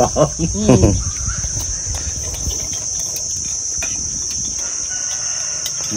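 Insects chirring in a steady high-pitched drone, with a brief voice in the first second and a few faint clicks of spoons on bowls.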